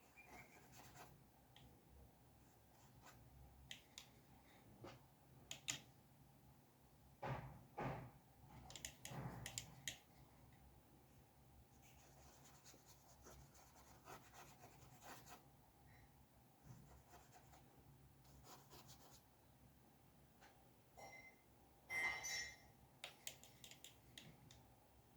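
Quiet scratching of a drawing tool on paper, with scattered light ticks. A few soft knocks from handling come between about seven and ten seconds in, and a short clink comes near the end.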